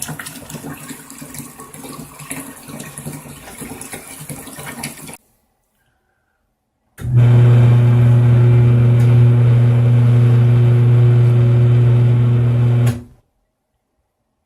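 Water splashing and running in a Giantex portable twin-tub washing machine for about five seconds. After a short cut, the machine's electric motor gives a loud, steady hum for about six seconds and then stops abruptly.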